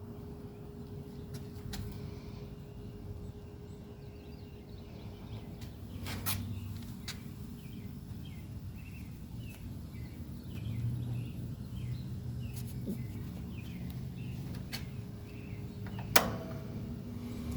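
Penncrest box fan's motor running with a steady low hum, with birds chirping in the background and a sharp click near the end.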